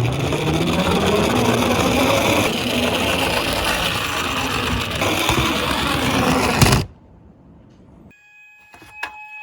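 Toy police minicars running on a toy track: a loud, steady clattering, whirring noise that cuts off suddenly about seven seconds in. About a second later an electronic toy police siren starts, holding a steady high tone with a few clicks.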